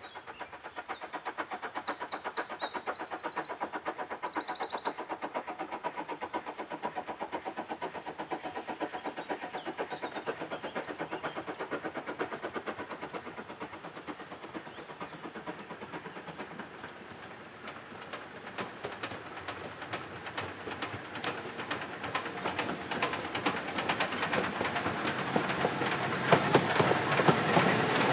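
Ex-Port Talbot Railway 0-6-0 saddle tank steam locomotive No. 813 hauling a train, its exhaust beats coming steadily closer. Near the end the carriages roll past, louder, with wheels clicking over the rail joints.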